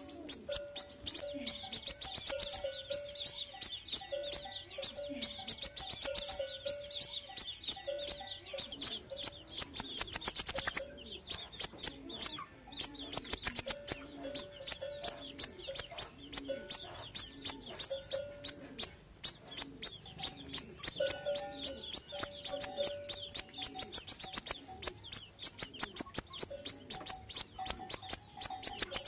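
Sunbird song: runs of rapid, very high, thin chirps and ticking trills, many notes a second, broken by short pauses, with brief lower whistled notes beneath.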